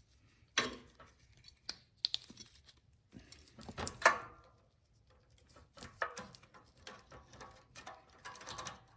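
Light metal clicks and clinks of small engine parts and hand tools being handled during snowblower carburetor reassembly, scattered and irregular, with a louder knock about four seconds in.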